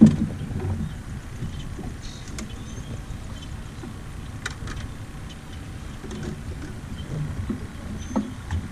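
Low, steady rumble of wind and water against a small boat, with a knock right at the start and a few light clicks and taps as a live minnow is fetched from the bait well.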